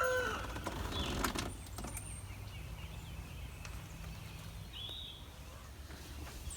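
A rooster's crow trails off at the very start. Then quiet outdoor sound follows: a faint low steady hum, a few light clicks and one short high chirp about five seconds in.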